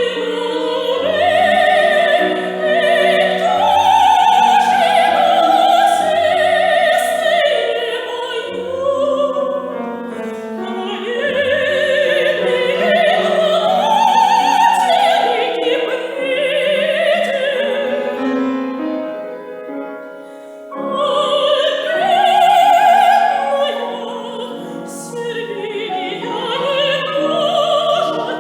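Soprano singing a classical vocal piece with vibrato, accompanied by piano. The voice breaks off briefly about two-thirds of the way through, then resumes.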